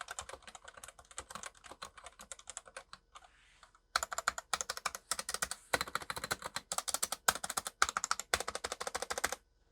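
Fast typing on a Womier WK61 60% mechanical keyboard with Otemu red linear switches (no click, no tactile bump): a quick run of soft keystrokes, very quiet, almost like a membrane keyboard. The typing stops briefly a little after three seconds in, then picks up again.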